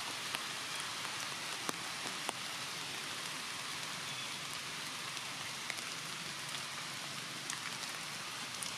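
Steady, even rain-like hiss, with a few faint sharp ticks scattered through it.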